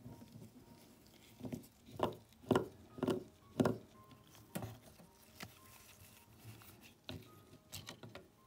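A run of light, sharp knocks, about two a second for a couple of seconds, then a few scattered weaker ones, over faint background music.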